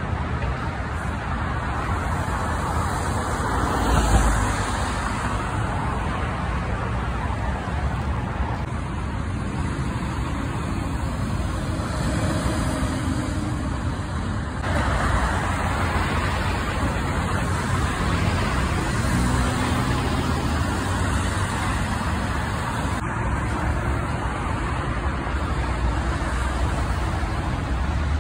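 Steady highway traffic noise: cars and heavy trucks passing, a continuous rush of tyres and engines with a louder swell about four seconds in.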